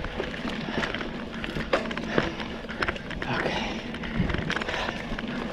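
Specialized Rockhopper aluminium mountain bike riding fast over a dry dirt singletrack: a steady rolling rush from the tyres, with many scattered clicks, knocks and rattles from the bike jolting over roots and stones, and a low rumble of wind on the microphone.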